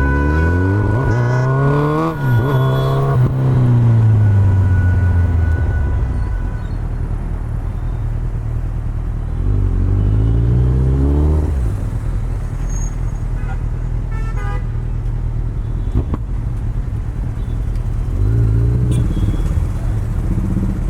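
Kawasaki Z900's inline-four through an Akrapovic exhaust, heard from the rider's seat. It revs up hard through two quick gear changes in the first few seconds, then the revs fall away. It pulls up again about ten seconds in, runs steadily at lower revs, and gives a short blip near the end.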